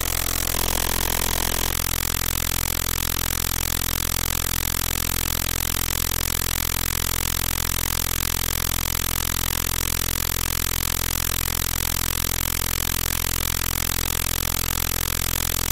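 Steady engine-like drone: a low hum made of several held tones over a constant hiss, with a fast, even flutter in loudness and a brief shift in tone about a second in.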